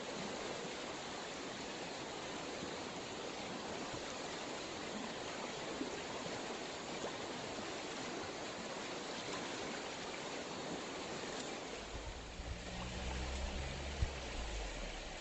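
Mountain stream water rushing steadily over rocks. Near the end a low rumble comes in, with one sharp knock.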